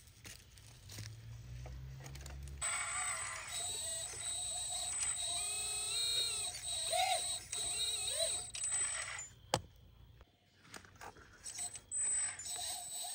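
Small electric hydraulic pump and drive of a 1/14 scale RC excavator whining, its pitch shifting up and down as the arm and bucket are worked, with one sharp click about nine and a half seconds in.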